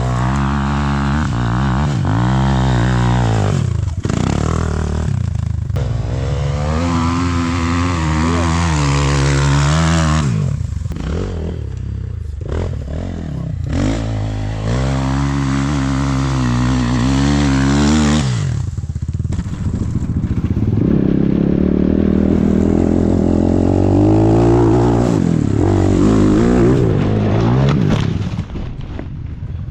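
Enduro motorcycle engine revved up and let fall back in several long surges, with rougher low running between them.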